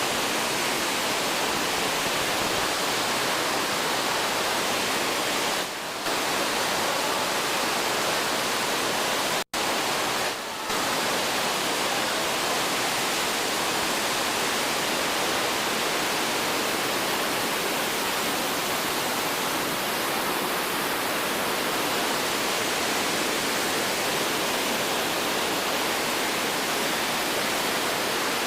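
Fukuroda Falls pouring in heavy flow, a steady rush of falling water. The sound drops out for an instant just under ten seconds in, with two short dips in level around 6 and 10 seconds.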